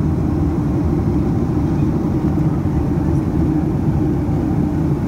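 Steady low-pitched cabin noise of a Boeing 767-300 in flight: jet engine and airflow noise heard from inside the passenger cabin.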